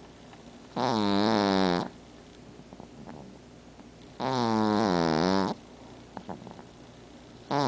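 Pug snoring in her sleep: two loud, pitched snores, each about a second long and some three seconds apart, with a third starting near the end and quiet breathing between them.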